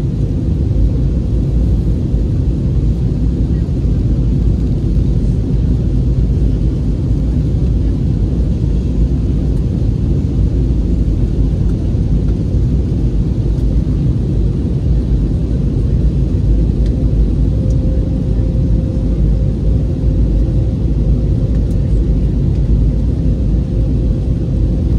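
Steady low drone of an airliner cabin in flight: jet engine and rushing airflow noise heard from inside. A faint steady hum joins in about two-thirds of the way through.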